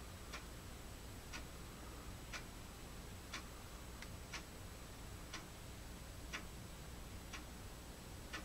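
Faint ticking of a clock, one even tick about once a second, over a low steady room hum.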